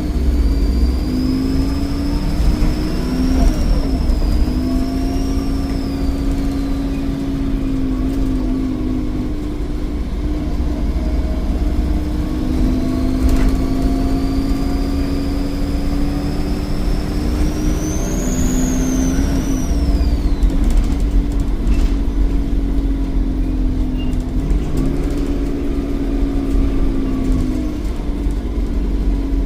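Volvo D7E 7.1-litre diesel engine of a Wrightbus Eclipse bus on a Volvo B7RLE chassis, running on the move, with its turbocharger whistling high above the engine note. The whistle rises and falls with the throttle, climbs to its highest about two-thirds of the way through, then slides down and dies away, while the engine note steps down and back up a few times.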